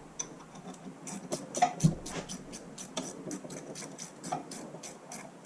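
Socket ratchet clicking as a bolt is run in on the crankshaft rear seal housing, an even run of about four or five sharp clicks a second, with one dull knock near the two-second mark.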